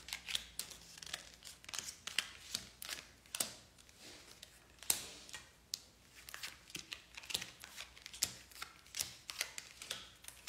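A small deck of fortune-telling cards being shuffled by hand, with irregular crisp flicks and slaps of card against card, a few a second.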